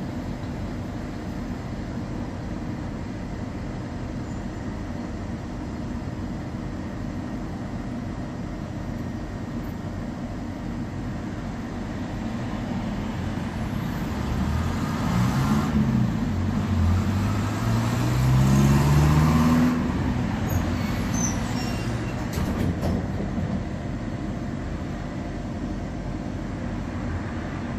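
Steady hum inside a standing Tatra T4D tram. About halfway through, a road vehicle's engine passes and grows louder, rising in pitch twice as it accelerates through the gears, then fades.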